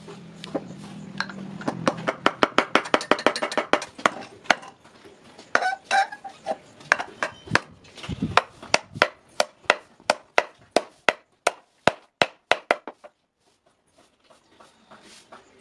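Hand hammer striking a nail set through a hole in a forged iron scissor blade on a wooden block, likely riveting the pivot. The blows are sharp and metallic with a brief ring, fastest about two to four seconds in, then steady at about three a second, and they stop about 13 seconds in.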